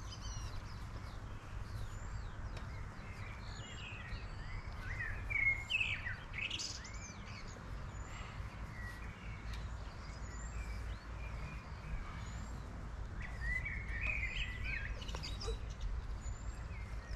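Birds chirping and calling, with a short high chirp repeating every second or two, over a steady low rumble.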